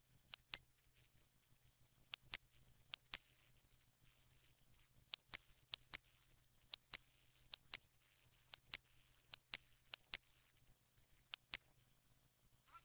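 Computer mouse button clicking, faint and sharp, a string of clicks many of them in quick pairs, as line segments are placed point by point in a CAD sketch. A faint steady low hum lies underneath.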